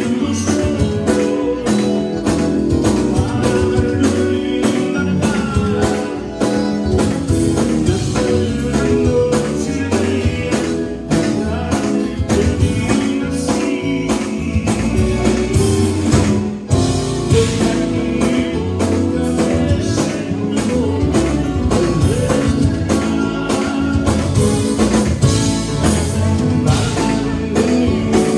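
Live Tejano conjunto band playing: button accordion, electric guitars, bass and drum kit over a steady beat, with a man singing lead.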